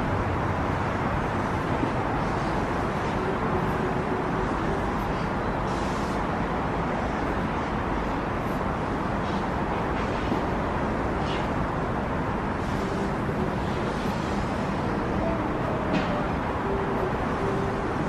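Steady rushing hum of distant road traffic.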